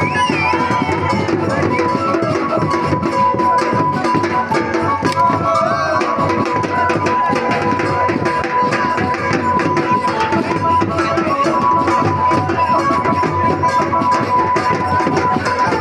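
Traditional music with fast, dense drumming and a steady high note held above the drums.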